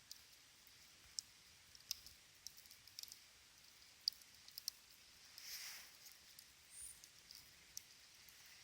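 Small wood campfire crackling, with sparse sharp pops and snaps at uneven intervals. A brief soft whoosh comes about five and a half seconds in.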